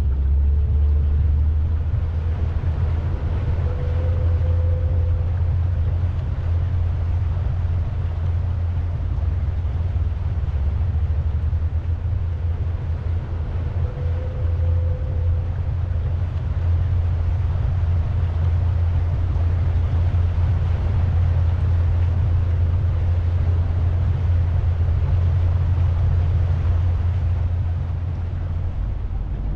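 Pontoon boat under way: a steady low rumble from its motor, with an even rushing hiss of water and air over it.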